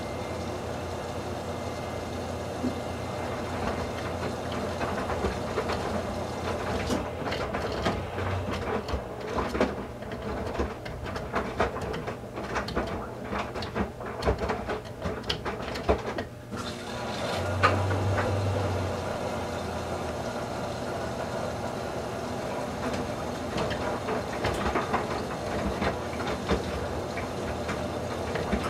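Whirlpool Duet WFW97HEDC front-loading washing machine in the fill and main wash of a towels cycle: water sprays into the drum as it tumbles a load of wet towels, with irregular sloshing and splashing. A low hum swells briefly a little past halfway through.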